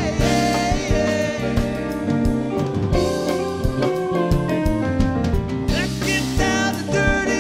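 Live band playing a samba-flavoured rock tune: drum kit, electric guitar and keyboards, with a sung vocal line.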